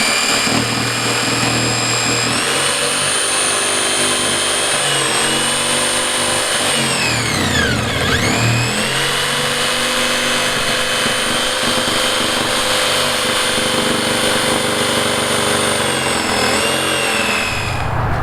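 Handheld electric power saw running steadily as it cuts a round hatch opening through a plastic kayak deck. Its motor slows sharply about halfway through, then speeds back up, and it stops near the end.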